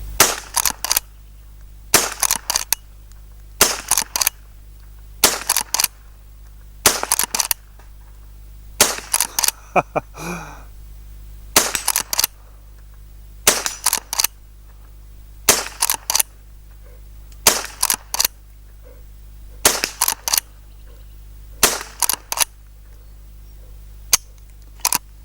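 Henry Youth .22LR lever-action rifle fired over and over, about a dozen shots roughly two seconds apart, with the clack of the lever being worked to chamber the next round after each shot.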